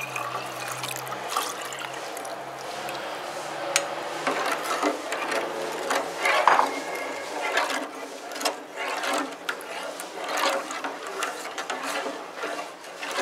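Custard mixture pouring from a jug into a saucepan of milk, then a spoon stirring and scraping against the metal pot in quick, irregular clicks and scrapes.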